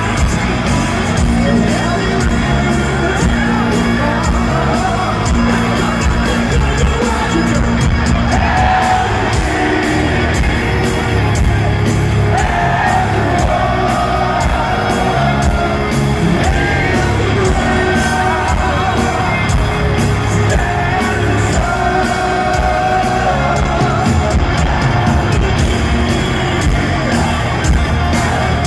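Heavy metal band playing a song live in a stadium, with a singer's vocals over the loud, continuous full-band sound.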